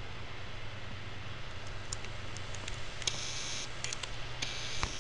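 Scattered faint ticks and clicks over a steady low hum, with two short spells of high hiss about three and four and a half seconds in: a desktop computer working while a program loads.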